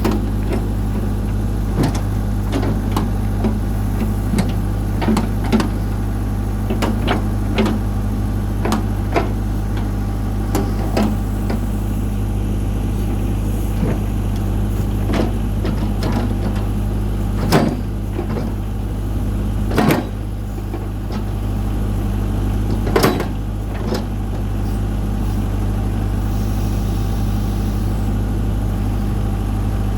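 New Holland LB75 backhoe loader's diesel engine running steadily while the hoe is worked, with repeated clanks and knocks from the bucket and boom linkage. Three heavier clunks come in the second half.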